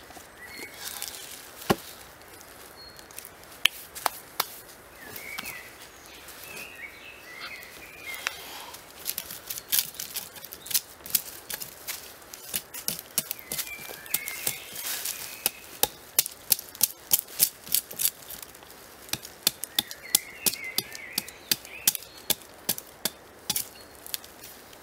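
Hatchet chopping into a log: a few separate strikes at first, then quick light blows about two to three a second from about nine seconds in.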